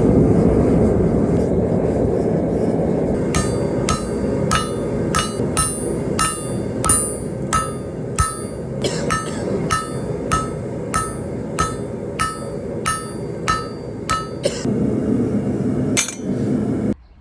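Hammer striking hot steel on an anvil in a steady rhythm, about two blows a second, each with a short metallic ring, during hand forging of a knife blade. A steady roar runs underneath, and the sound cuts off suddenly near the end.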